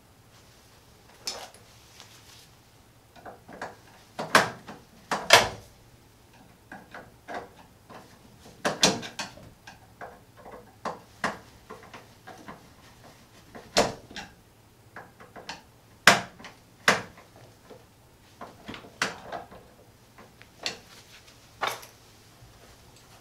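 Irregular clicks, taps and knocks of hands working in a metal breaker panel, handling a double pole breaker and its wires, with a few louder snaps and knocks scattered through.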